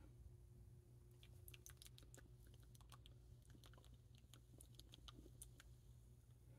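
Near silence: room tone with faint, scattered small clicks and ticks.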